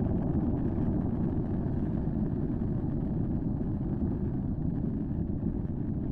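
Steady low rumble picked up by a live webcam's outdoor microphone at an erupting Icelandic fissure volcano, with no separate bangs or bursts.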